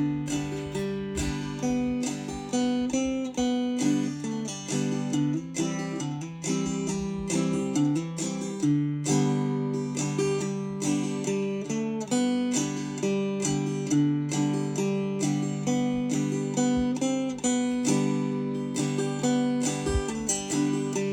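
Gourd banjo in open G tuning (gDGBD) played clawhammer style, a slow, steady bum-ditty rhythm of single plucked melody notes followed by brushed strums.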